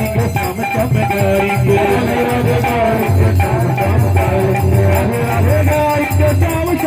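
Devotional kirtan music: a sung melody over a steady, rhythmic drum beat, with jingling percussion.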